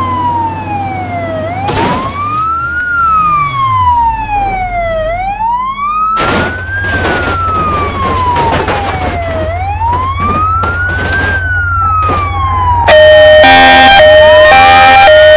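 Ambulance siren in a slow wail, its pitch sweeping down and then back up about every four to five seconds, over a low steady rumble. Near the end it switches to a louder two-tone hi-lo siren stepping between two notes.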